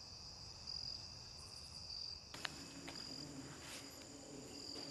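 Faint crickets chirping steadily, with a single brief click about two and a half seconds in.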